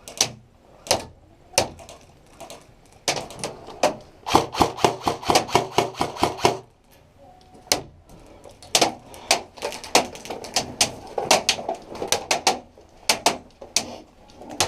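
Airsoft guns firing: a few single shots, then rapid bursts of sharp clacks, several a second, about four seconds in and again from about nine seconds in.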